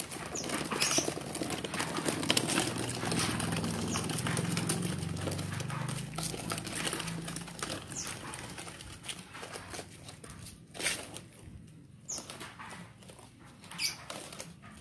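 Hard plastic wheels of a child's ride-on toy car rolling and crunching over gritty asphalt as she pushes it along with her feet. The rolling noise thins out about halfway through, a low hum sits under it in the middle, and a couple of short sharp sounds stand out near the end.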